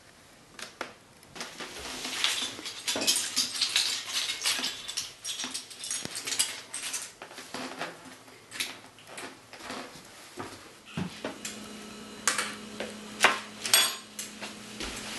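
Small plastic Lego pieces clattering and clicking as they are gathered up from a rug. After about eleven seconds a steady low hum starts, with a few sharp clinks from kitchen items on the counter.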